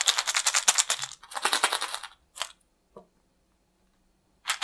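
Homemade sound cylinders, plastic chocolate-egg toy capsules holding small dry fillings, shaken rapidly by hand close to the ear. The rattling comes in two runs, then a short shake about two and a half seconds in and a click near three seconds. It goes quiet, then the rattling starts again at the very end.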